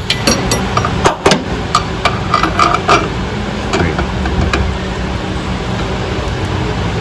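Metal tools and hardware clinking and knocking against the car's underbody during engine-mount work: a quick run of sharp irregular clinks in the first three seconds, some briefly ringing, then only a steady low rumble.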